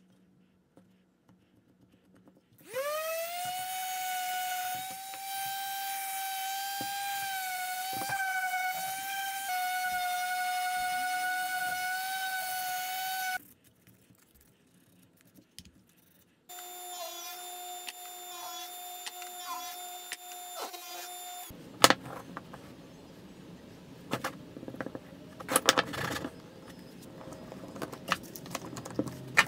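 Electric random orbit sander spinning up with a brief rising whine and running steadily at high pitch for about ten seconds, then stopping. After a pause a lower steady motor whine runs for about five seconds. Then come scattered clicks and knocks as bar clamps and wood pieces are handled.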